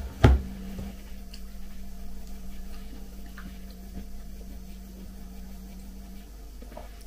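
A single knock of something set down on a table a fraction of a second in, followed by faint handling ticks over a steady low hum.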